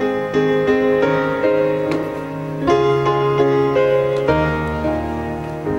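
Background piano music: a melody over held chords, with a deep bass note entering about four seconds in.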